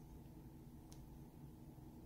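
Near silence: faint low room hum, with one faint tick about a second in.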